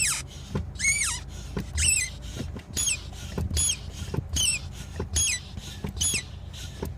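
2003 Honda Accord brake pedal squeaking as it is pressed and released over and over: short high squeaks about one a second, some bending up and down in pitch, each with a light low knock.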